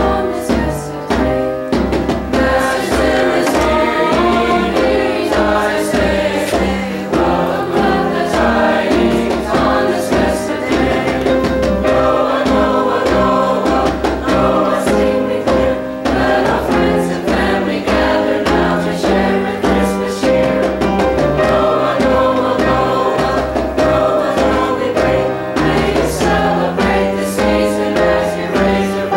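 Mixed choir singing with piano accompaniment, a djembe drum beating a steady rhythm beneath the voices.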